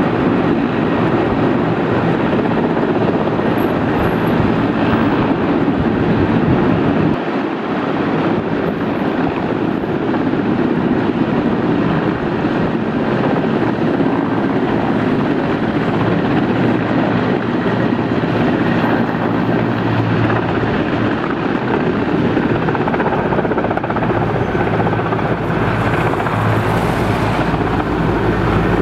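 Mi-8/Mi-17-type military helicopters flying low overhead: a loud, steady rotor and turbine noise, with a short drop in level about seven seconds in.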